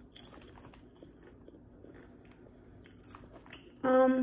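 Crab-seasoned potato chip crunched in the mouth with a sharp bite just after the start, then quieter chewing crackles. Near the end comes a short, louder hum.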